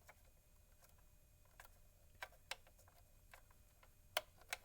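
Faint, irregular clicks and small knocks from the knobs and switches of a 1960s General Electric C551D clock radio being worked to set its alarm, with two sharper clicks near the end.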